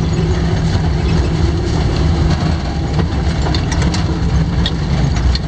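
A vehicle's engine running steadily while driving over a rough dirt road, with tyre and road noise and scattered small clicks and knocks.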